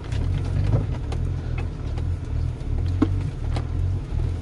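Hyundai Terracan's engine running at low speed, heard from inside the cabin as it drives over a rough dirt trail. Scattered light knocks and rattles come through, with one sharp knock about three seconds in.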